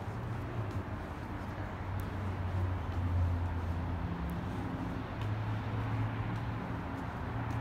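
City traffic noise: a steady rush with a low engine hum that swells and fades a couple of times.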